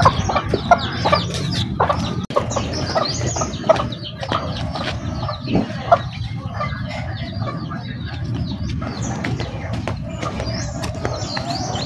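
Chickens clucking: a busy, continuous run of many short calls.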